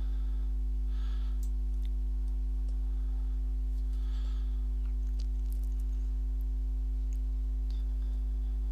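Steady low electrical mains hum with a row of fainter overtones, with faint breaths about a second in and around four seconds, and a few faint clicks later on.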